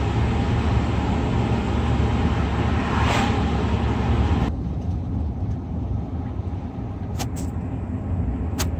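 Road noise from a truck driving along: a steady low engine and tyre rumble with a broad hiss over it. The noise swells briefly about three seconds in, the hiss drops away sharply about halfway through, and there are two short clicks near the end.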